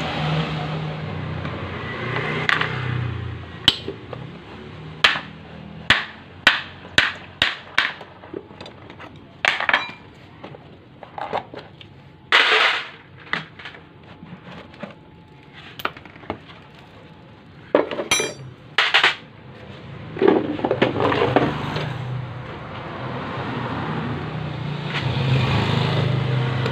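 Tools and bolts clinking: a string of sharp metal clicks and knocks as the 10 mm bolts of a Yamaha NMAX scooter's air filter box are undone with a T-handle wrench, with some scraping and rattling as the plastic box is worked loose. A low hum sits under it at the start and again near the end.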